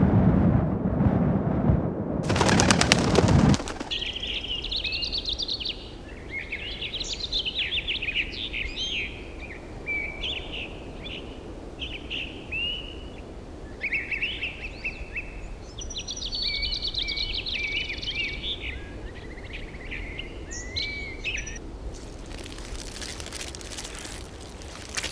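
Birds singing and calling in many short chirps and whistles over a low steady background. A loud rattling burst comes in the first few seconds, and a hiss sets in near the end.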